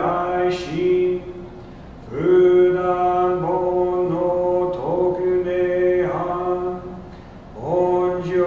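A male Buddhist minister chanting a sutra solo, held mostly on one steady reciting note, each phrase sliding up into it, with short pauses for breath about a second in and again near the end.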